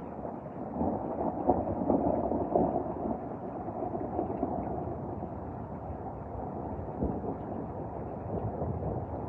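Rolling thunder during a severe thunderstorm: a deep rumble swells about a second in, is loudest for the next couple of seconds, then rolls on more steadily.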